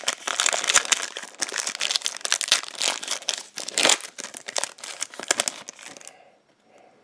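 Foil wrapper of a Donruss football trading-card pack being torn open and crinkled by hand: a dense run of crackling that stops about six seconds in.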